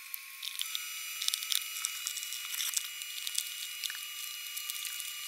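Small scattered clicks and scrapes of hands working on an RV roof vent's plastic trim as it is refitted. They sit over a faint steady hiss and thin high whine, and the whole sound is tinny with no low end.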